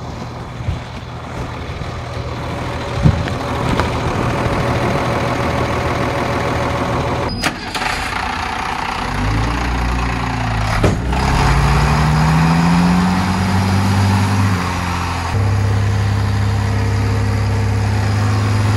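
Heavy vehicle engine running steadily, with a sudden break about seven seconds in. From about nine seconds in it revs, the pitch climbing, then drops back to a steady run near the end.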